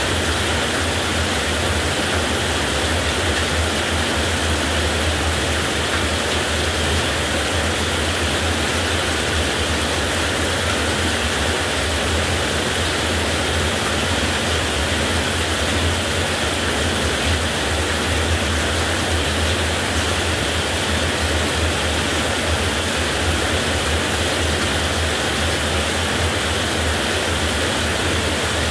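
Heavy rain falling steadily, an even, dense hiss with no breaks or claps of thunder.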